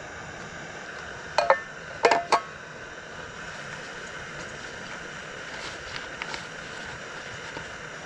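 Camp cookware being handled: a few short clinks with a brief metallic ring, a pair about a second and a half in and another pair about two seconds in, then a few faint ticks near six seconds, over a steady background hiss.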